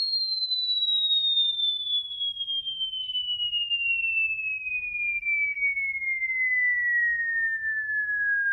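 A Bang & Olufsen Beosound A5 speaker playing a pure sine test tone that glides smoothly and steadily down in pitch, from high to mid: part of a frequency sweep.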